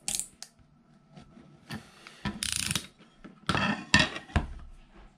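Wood-filled PLA prints being pried and scraped off a glass 3D-printer build plate with a hand tool: sharp clicks and short scraping bursts, then a heavier knock about four seconds in as the glass plate is set down on the table.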